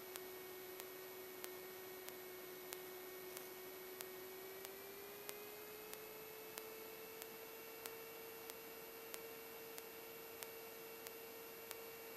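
Faint steady electrical whine and hiss on a light aircraft's radio/intercom audio feed. The whine rises slightly in pitch about five seconds in and then holds. Faint regular ticks come about one and a half times a second.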